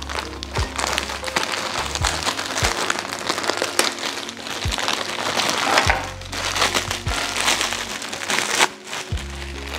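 Clear plastic bag crinkling and rustling as it is snipped open with scissors and pulled away from a stack of instant-noodle packs. Lofi hip hop background music with a steady beat plays underneath.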